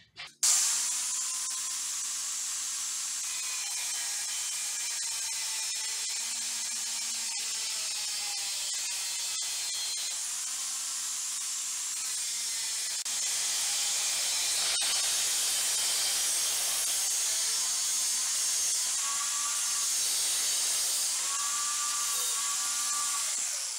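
Corded angle grinder with a cutoff disc switched on about half a second in, then running steadily with a high hiss and whine as it cuts through an aluminum threshold strip, a little louder from about halfway as the disc bites into the metal. It shuts off at the very end.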